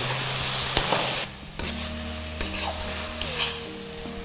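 Metal spatula scraping and stirring vegetables and thick ground-coconut paste in a kadai, with a light sizzle from the pan and a few sharp clicks of the spatula against the metal.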